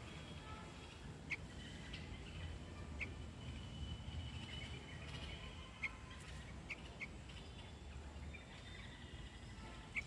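Bulbul fledgling giving short chirps, about six spread over ten seconds. Fainter thin whistling notes come in around the middle, over a steady low background rumble.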